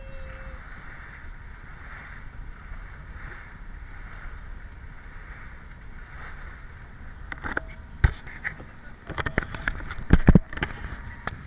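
Steady rush of wind and water around a sailboat under sail. From about seven seconds in, a run of sharp knocks and clicks close to the microphone, the loudest about ten seconds in.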